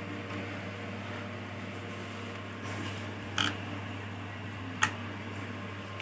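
Two sharp clicks about a second and a half apart over a steady low hum: a flathead screwdriver prying at the plastic faceplate of a laptop's DVD drive.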